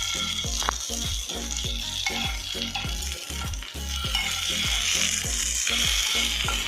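Palua bhaja (arrowroot-flour fritters) sizzling steadily as they shallow-fry in hot mustard oil in a pan.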